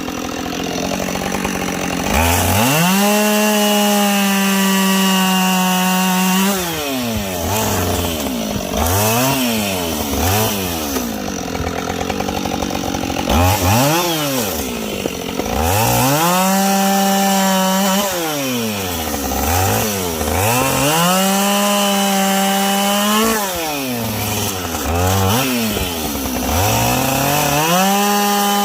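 Two-stroke chainsaw bucking logs. It revs up to full throttle and holds there for cuts of a few seconds, then drops back to idle between cuts, with a few short throttle blips in between, about four long cuts in all.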